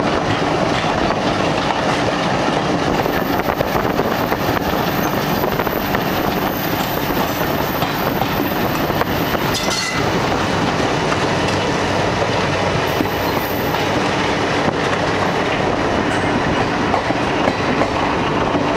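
Steady rumble and clatter of train wheels running on the track, heard from aboard a moving passenger train as it overtakes another train on the next line.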